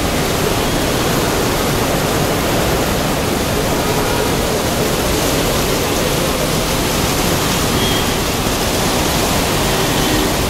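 Heavy rain falling steadily on pavement and road, a dense even hiss.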